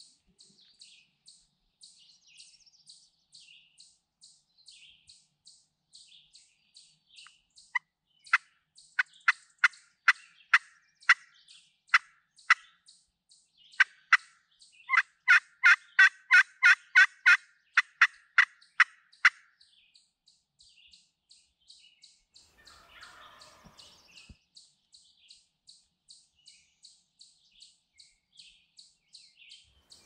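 Hen-turkey yelps from a hunter's hand-held friction call (pot call and striker): a run of separate yelps for about eleven seconds in the middle, first about two a second, then quicker and louder. A small bird chirps faintly, about three times a second, all the way through.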